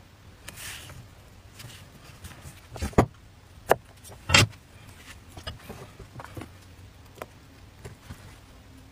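A cleaver knocking on a wooden chopping board: three sharp knocks between about three and four and a half seconds in, the last one loudest, with lighter taps and handling of cut vegetable pieces before and after.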